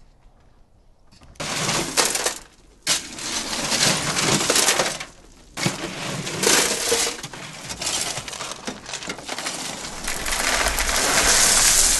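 Shovels digging into a load of gravel and tipping it into a wheelbarrow: a loud, gritty crunching and clattering of stones. It starts about a second and a half in and has two short breaks.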